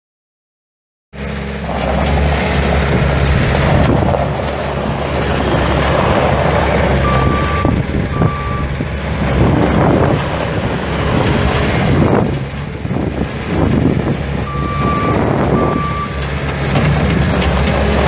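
A Bobcat skid steer's four-cylinder diesel engine running and working, its level rising and falling, cutting in suddenly about a second in. A backup alarm sounds two short beeps twice, once in the middle and once near the end.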